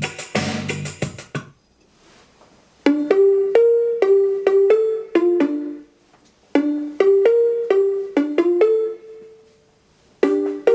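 Music played back through a hand-built valve amplifier with two EL84 output tubes and hand-made speakers. A dense passage stops about a second and a half in; then come phrases of short, sharp melodic notes with brief pauses between them.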